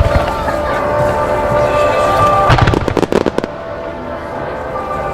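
Starmine fireworks display: a rapid volley of firework bangs and crackles starts about two and a half seconds in and lasts about a second. Music with sustained notes plays throughout.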